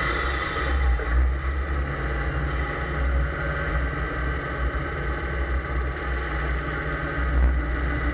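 Fiat 131's 2.0-litre 16-valve turbo engine running steadily under way as the car is driven around a track, with one brief knock about seven and a half seconds in.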